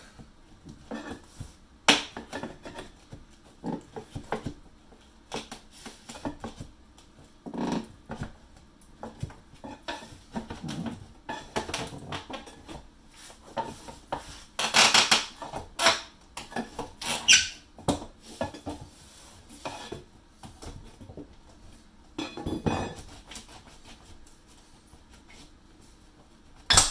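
An old interior window sill being pried loose with a pry bar: a run of creaks and squeaks as it gives way, mixed with scraping and knocks. The sharpest cracks come about two seconds in and at the very end.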